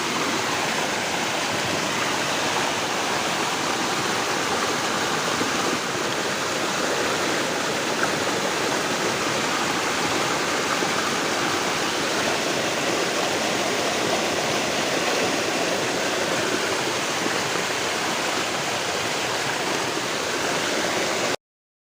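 Steady rushing of heavy rain and flooding runoff water, an even roar with no let-up that cuts off suddenly near the end.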